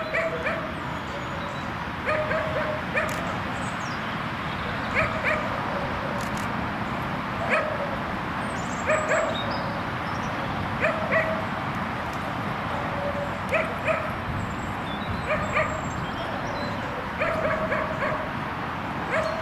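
A dog giving short, high barks, often two or three in quick succession, repeating every second or two.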